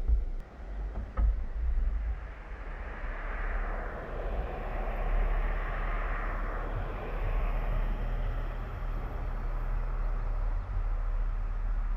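A car passing on a wet road: the tyre hiss swells and fades through the middle, over a steady low rumble. Two short thumps sound in the first second or so.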